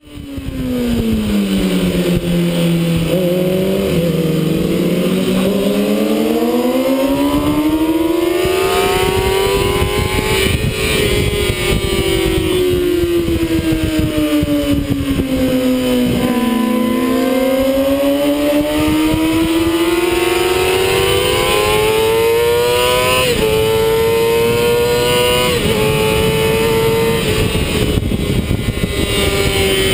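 Sport motorcycle engine running hard under an onboard camera. Its note sinks and climbs several times as the revs change, with a few sudden small jumps in pitch later on. Steady wind rush comes over it once the bike is at speed.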